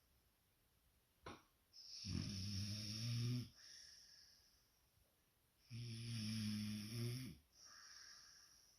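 Snoring: two long snores about four seconds apart, each a low buzzing rattle with a hissing breath around it that trails off softly.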